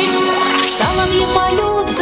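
Instrumental passage of a Russian pop-folk song, with the band playing and no voice singing.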